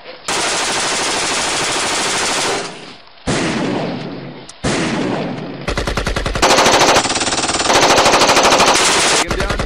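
Machine-gun fire sound effect: three long strings of rapid automatic fire, then a longer, louder volley of rapid separate shots from about six seconds in.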